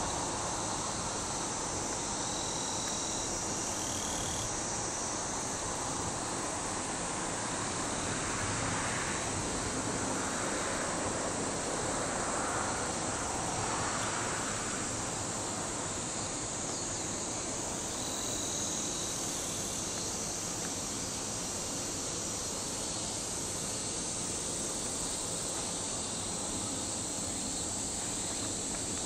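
Steady, high-pitched chorus of summer insects, with a couple of brief faint chirps.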